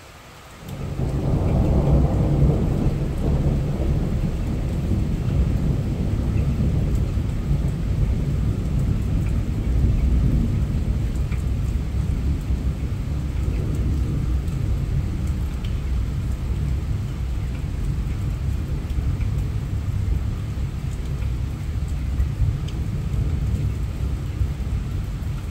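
Thunder breaking suddenly about a second in: a loud rumble strongest over the first few seconds, then a low rumble that goes on steadily, with rain falling throughout.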